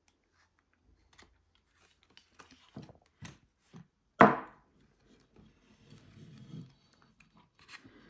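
Handling noise from a Nixie clock's metal chassis being turned over by hand: scattered clicks and knocks, one sharp knock a little over four seconds in, and some soft rubbing.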